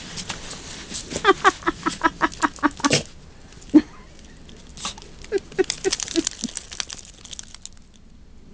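Snow shovel digging in deep snow: crunching and scraping strokes, with two quick runs of short squeaks.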